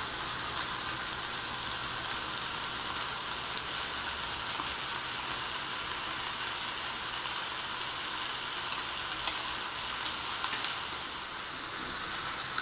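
Chicken breasts sizzling steadily in a closed electric combination grill-panini press, with a few faint clicks.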